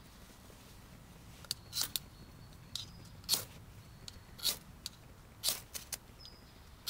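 Ferrocerium rod struck repeatedly over tinder in a small metal twig stove: a series of short, sharp scrapes, the strongest coming about once a second. The sparks are meant to light freshly fluffed tinder that has not yet caught.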